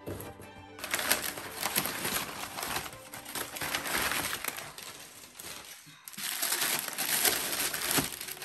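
Crumpled brown kraft packing paper crinkling and rustling as it is handled and pulled out of a cardboard box, then tissue paper rustling. The crinkling eases briefly about six seconds in and picks up again.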